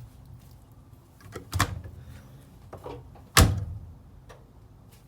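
Two sharp knocks, about two seconds apart, with a few fainter clicks between them, over a low steady hum.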